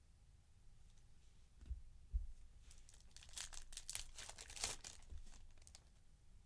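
A couple of soft thumps, then about three seconds of crinkling and tearing as a trading card pack wrapper is ripped open.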